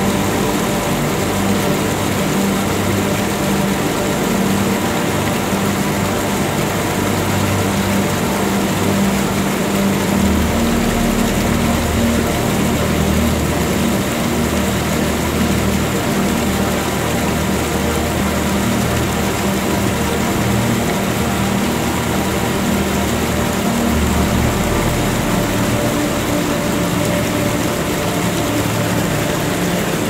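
Ambient soundtrack music: long sustained low droning notes that change pitch a couple of times, over a steady wash.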